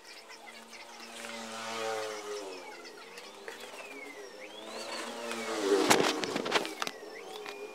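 Cardboard box and bubble-wrap packaging rustling and crackling as it is handled, loudest about six seconds in. A passing engine rises and falls in the background.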